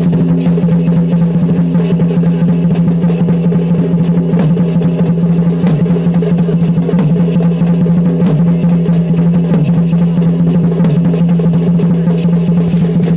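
Chhau dance music: drums beating in quick, uneven strokes over a loud, steady held tone.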